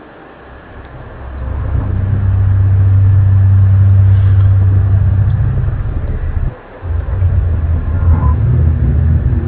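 A loud, low droning hum with a steady pitch, swelling in over the first couple of seconds, dropping out for a moment about two-thirds of the way through, then coming back wavering: one of the mysterious 'strange sounds' of January 2012.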